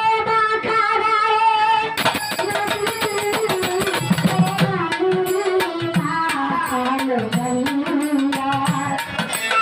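Violin playing a Bengali folk melody with sliding notes, joined about two seconds in by hand-drum beats and sharp jingling percussion.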